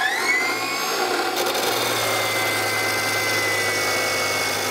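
Milwaukee M18 Fuel 14-inch cordless abrasive chop saw finishing its spin-up with a rising whine. About a second and a half in, its abrasive wheel bites into 1/8-inch-wall square steel tubing and grinds through it steadily: a high whine over a harsh grinding hiss.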